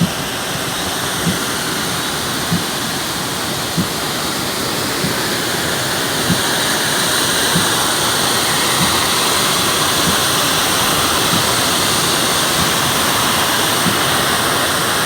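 Floodwater gushing with a steady, loud rush. A short, soft thump repeats evenly about every second and a quarter.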